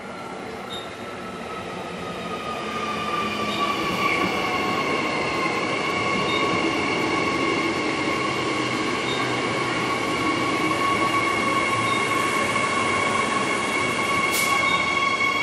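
Queensland Rail City Train electric multiple unit pulling into a station platform. A high-pitched whine slides down in pitch over the first few seconds as the train slows, then holds steady, growing louder as the carriages draw alongside, over a hiss of running noise. There is a single sharp click near the end.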